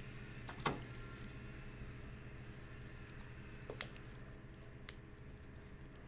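A few sharp small plastic clicks and taps from handling an opened car key fob's plastic case: the loudest about half a second in, two lighter ones near four and five seconds in.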